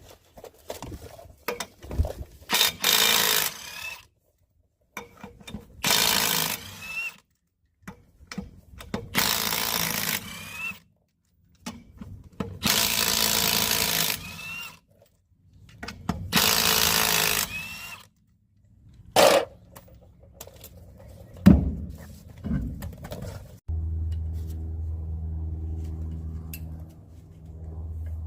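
Power impact wrench spinning off the five lug nuts of a 1994 Ford F-150 rear wheel, one burst per nut, each burst ending in a short rising whine. A few metallic knocks follow, then a steady low hum starts near the end.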